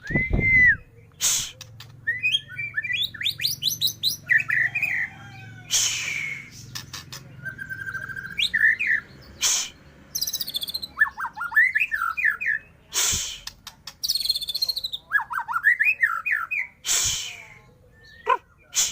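White-rumped shama singing a varied song of quick whistled and warbled phrases that sweep up and down in pitch. Several loud, sharp snaps come between the phrases.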